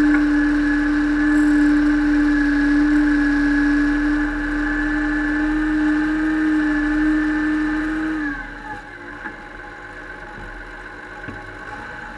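Case IH tractor's diesel engine running steadily under way, with a strong, even engine note. About two-thirds of the way through, the note dips and the engine goes noticeably quieter as the revs come off.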